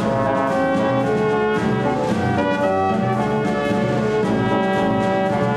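A brass band playing music, with a steady run of held brass notes changing pitch every fraction of a second.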